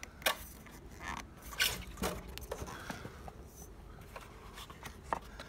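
A few scattered sharp clicks and knocks as the folded e-Twow S2 electric scooter is handled, its rear fender pushed down to release the stem from the folding clip.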